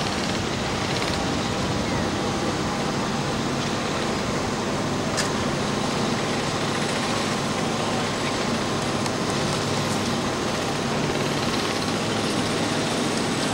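Steady running noise of a slow-moving vehicle on a wet street, heard from aboard, with one sharp click about five seconds in.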